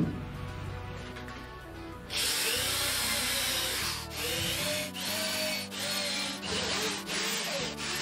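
Electric drill boring holes into a wooden board. It starts about two seconds in and runs in bursts with short pauses roughly once a second, over background music with a steady beat.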